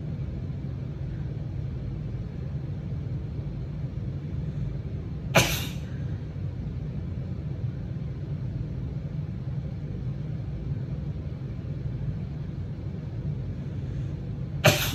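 A woman sneezing from allergies: two short, sharp sneezes about nine seconds apart, over a steady low rumble.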